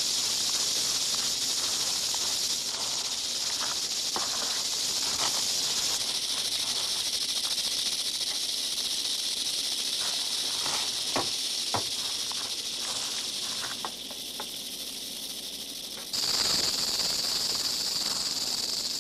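Western diamondback rattlesnakes rattling: a steady, high, dry buzz of defensive warning. It eases off about three-quarters of the way through and comes back loud soon after. A few faint knocks are heard under it.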